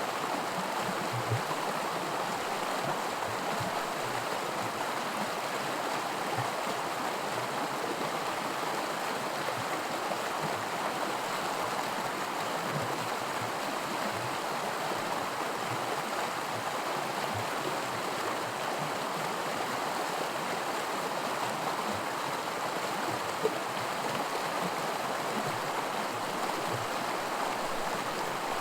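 Small creek rapids: water rushing and splashing over rocks in a steady, even wash.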